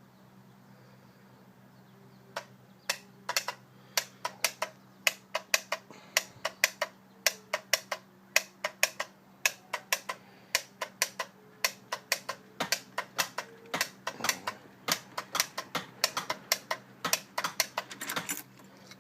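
Repeated sharp clicking from the starting system of a Ford E350's 7.3 L Power Stroke diesel, while the engine neither cranks nor starts. The clicks begin about two seconds in and come irregularly, two or three a second and sometimes in quick clusters. This is the no-start symptom that a new starter and checked cables have not cured.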